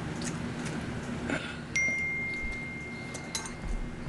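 A notification chime: a single clear high tone that sounds suddenly about two seconds in and holds steady. A few light clicks of a fork against dishes.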